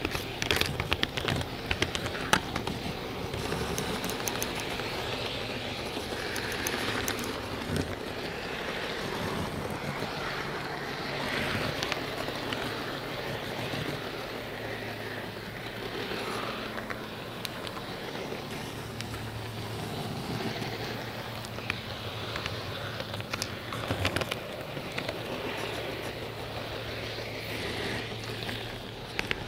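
A camcorder riding on an HO-scale model railroad flat car, pushed by hand along the track: a steady rolling rustle with scattered sharp clicks and knocks, bunched in the first few seconds and again about 24 seconds in.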